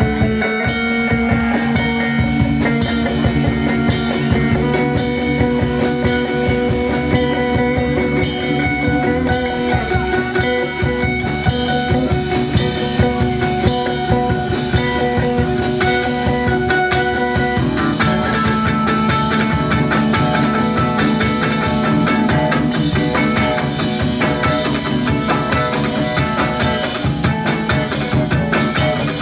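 Live rock band playing: electric guitars holding sustained notes over bass guitar and a drum kit. The music changes to a new part about 17 seconds in.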